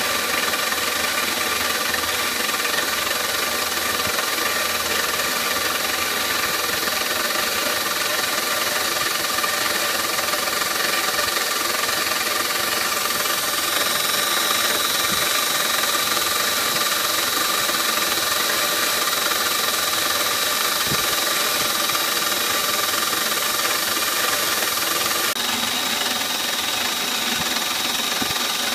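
CNC milling machine's end mill cutting a clear plastic block, a steady whine of the spindle and cutter; this is a finishing pass cleaning up the rough cut. A higher whistling tone joins a little under halfway through.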